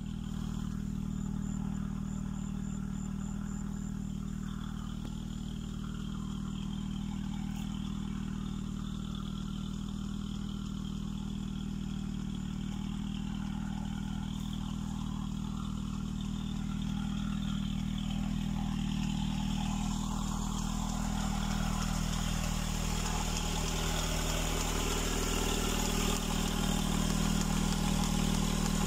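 Small engine running steadily at a constant speed, driving a belt-driven irrigation water pump. It grows louder over the last several seconds.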